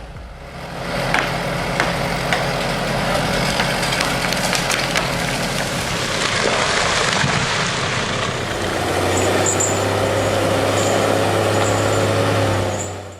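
Heavy machinery running: loud, noisy engine and working sound, settling in the second half into a steady low engine hum, then cutting off near the end.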